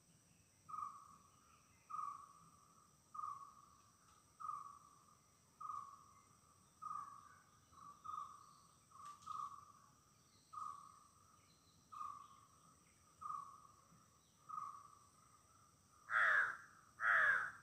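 Forest birds calling: one bird repeats a single clear note about once a second, a dozen times over. Near the end come two loud, harsh caws, the loudest sounds here. A steady high insect drone runs under them.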